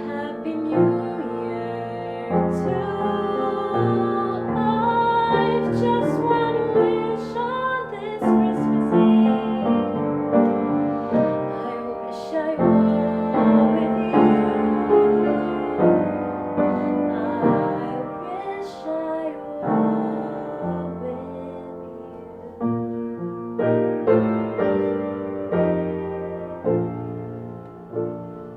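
Piano music, notes and chords played steadily, growing quieter toward the end.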